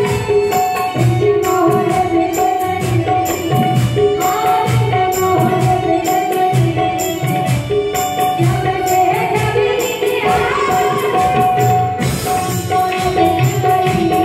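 Music with a steady percussion beat and pitched melody lines.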